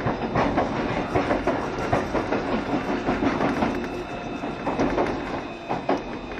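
Running noise of a JR Shikoku 7200 series electric train: a steady rumble with irregular clacks of the wheels over rail joints.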